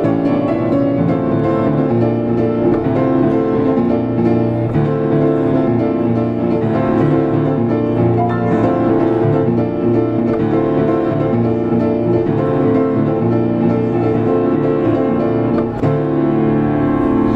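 Diapason grand piano played solo: a fast, dense passage of chords and runs over a heavy, sustained bass.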